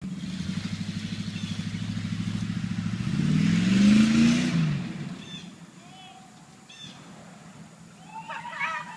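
GMC van's small-block Chevy 350 V8 running with a pulsing, lumpy note, then revved about three seconds in. The pitch rises to a peak around four seconds, then drops and fades out about a second later.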